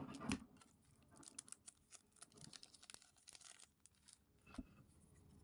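Faint crinkling and tearing of a Pokémon card booster pack's foil wrapper being opened, with small clicks of cards being handled and a soft knock near the end.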